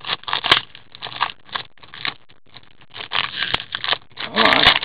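Foil wrapper of an O-Pee-Chee Platinum hockey card pack being torn open and crinkled: irregular crackling and rustling, busier and louder over the last couple of seconds.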